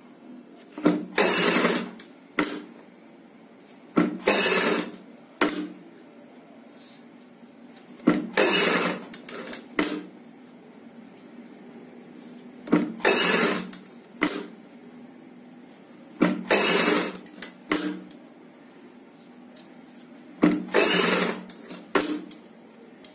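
Sewing machine stitching piping onto fabric in six short runs of about a second each, with a click or two after each run.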